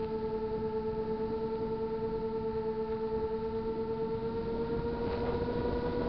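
Small RC airplane's motor and propeller whining at a steady pitch that edges up a little about two-thirds of the way through, with wind rushing over the onboard camera.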